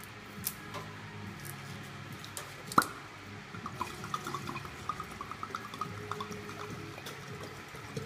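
Vodka glugging out of a glass bottle into a glass jug: a quick run of gurgles through the second half. About three seconds in there is a single sharp click.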